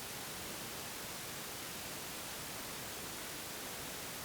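Steady, even hiss with nothing else in it: the background noise of the recording.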